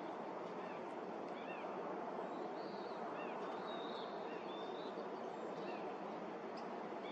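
Small birds giving short, high chirps, a few at a time and scattered irregularly, over a steady rushing background noise.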